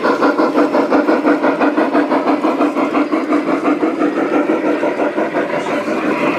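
Large-scale garden-railway model steam locomotives running past with a steady rhythmic chuff, about five beats a second.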